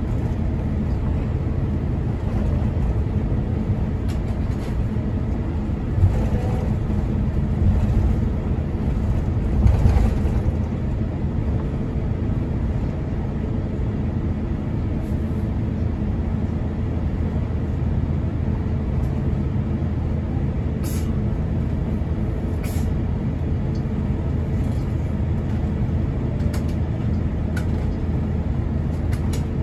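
Cabin noise of an Airbus A350-941 taxiing: a steady low rumble from the engines at low thrust and the wheels rolling on the taxiway, with a few louder bumps about six to ten seconds in.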